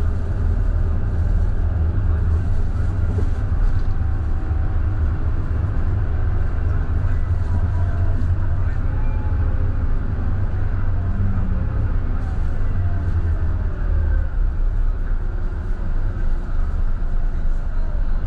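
Scania K320IB bus running under way, with a deep, steady engine and road rumble. Its pitch glides up and down a few times in the middle of the stretch as the bus changes speed.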